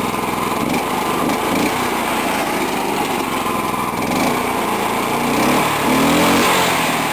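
Small single-cylinder go-kart engine running steadily, its speed rising and falling a few times, loudest about six seconds in.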